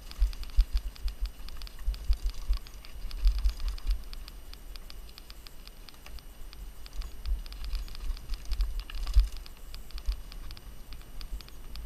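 Mountain bike rolling fast downhill over a rough dirt trail: a steady clatter of irregular clicks and rattles from the bike, with low thumps as it hits bumps and a harder knock about nine seconds in.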